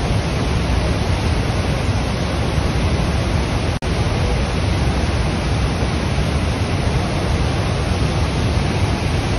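Muddy river in flood rushing over boulders: a steady, loud rush of water, heaviest in the low range, with a split-second dropout about four seconds in.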